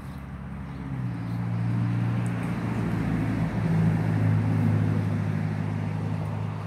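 A motor vehicle's engine running with a steady low hum, growing louder over the first couple of seconds and then holding.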